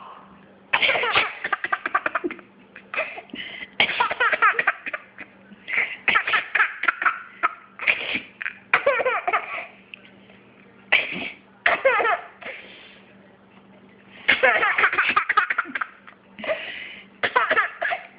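Baby laughing in repeated short bouts of giggles, with pauses between them.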